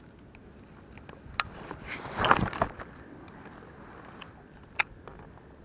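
Handling noise from a baitcasting rod and reel: a few sharp clicks and one brief, louder rustle about two seconds in.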